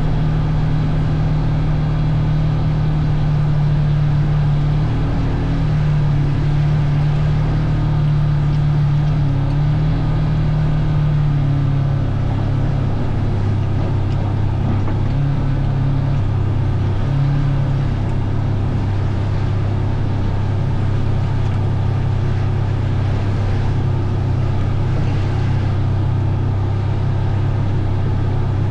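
Vehicle engine running steadily under way, its pitch dropping slightly about twelve seconds in and holding lower after that.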